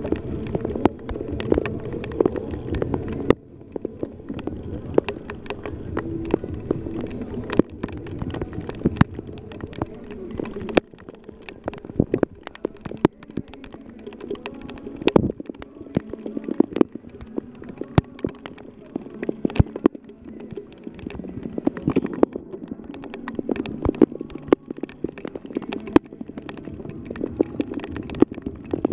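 Stadium crowd of baseball fans chattering and cheering, a continuous murmur of many voices, with many scattered sharp taps throughout.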